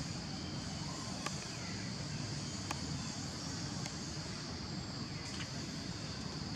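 Forest ambience: a steady, high-pitched insect drone with low wind rumble on the microphone, and a few faint clicks.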